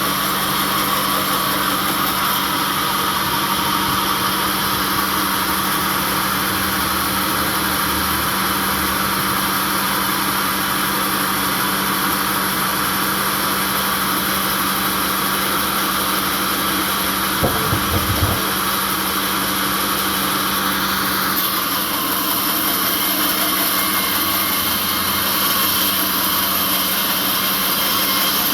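Sawmill machinery running steadily: a constant motor hum under a strong high hiss, with a few brief low knocks about two-thirds of the way through.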